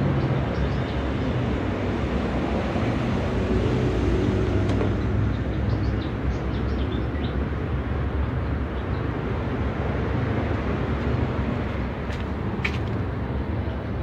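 Steady low rumbling background noise, with a few faint ticks and a sharper click near the end from a screwdriver working the screws of a washing machine's metal side panel.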